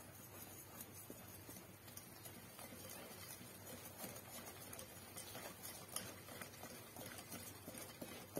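Wire whisk stirring cake batter in a glass bowl, faint quick ticks of the whisk knocking against the bowl, a few each second.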